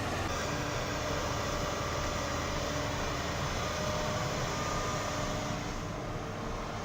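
Steady running of the heavy diesel machinery loading a dump truck, a Volvo 220 excavator and the truck, a continuous engine and hydraulic noise that turns duller about five and a half seconds in.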